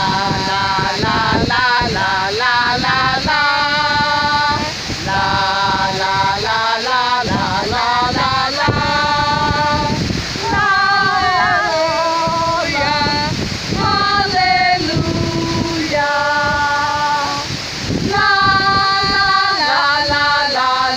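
A woman's voice singing a slow melody in long held notes, with a steady rushing noise beneath.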